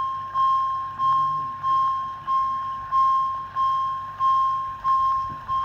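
Japanese railway level-crossing alarm sounding, warning of an approaching train: a single ringing ding repeated about every two-thirds of a second, each with a sharp start and a fading tail.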